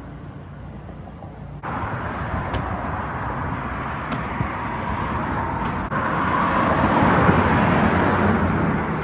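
Outdoor background noise: a steady hiss that jumps louder at two cuts, about two seconds in and again about six seconds in, with a few faint clicks.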